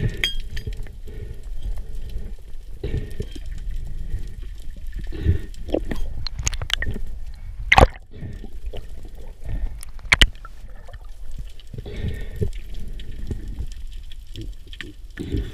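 Underwater water movement heard through a diver-mounted camera's housing: a steady low rumble with sloshing and gurgling, broken by scattered sharp clicks and knocks. The loudest clicks come about eight and ten seconds in.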